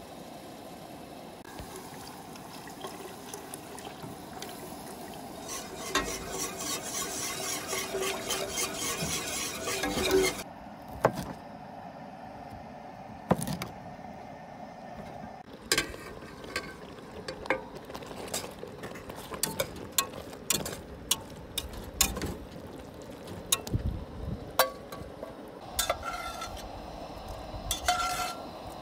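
Camp cooking sounds. First a steady pouring of liquid into a plastic measuring cup, then many sharp knocks of a knife chopping broccoli on a plastic cutting board, and near the end a metal spatula scraping a cast-iron skillet.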